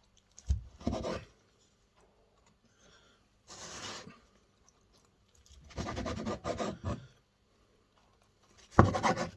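Rubbing and scraping handling noises in four short bouts, as a crusty pie is picked up and broken into.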